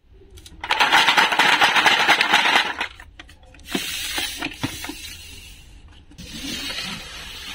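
Plastic toy fruit and pop tubes clattering and rattling in a metal tray as it is handled, loudest for about two seconds from under a second in. Then quieter knocks and scraping as the tray is slid across the table.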